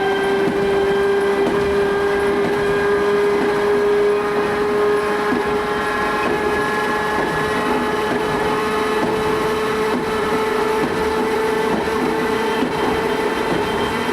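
Worn English Electric traction motors of a Southern Region 2EPB (Class 416) electric multiple unit whining as the train runs, the whine slowly rising in pitch as it gathers speed, over the rumble of the coach running on the track.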